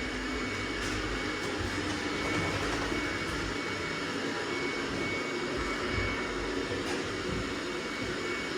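Robot vacuum cleaner running: a steady whirring hum with a thin high whine over it.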